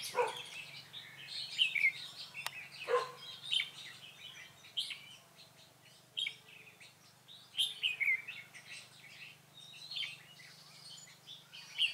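Oriental magpie-robins singing and calling: a string of short whistled phrases and sharp chirps, some slurring downward, thinning out for a few seconds in the middle before picking up again.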